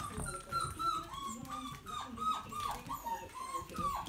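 Young puppies, about five and a half weeks old, whining and yipping: a string of short, high cries, many of them dropping in pitch, overlapping one another.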